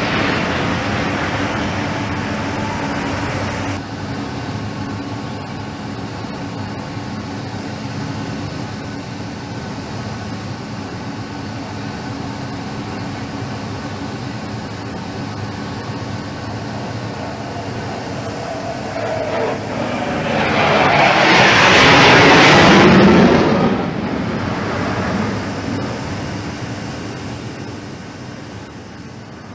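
Aircraft engines droning overhead. About twenty seconds in, a loud rushing swell of noise builds and then drops off sharply a few seconds later, after which the drone fades away.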